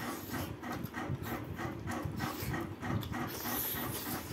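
Open-mouthed chewing and lip-smacking, about four smacks a second, as dry pork trotter is eaten by hand.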